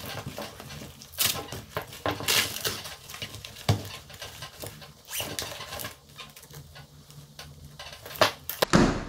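Handling of a motocross body armour jacket: irregular rustling of its fabric and clacking of its hard plastic plates as it is turned over and unfolded, with a louder thump near the end.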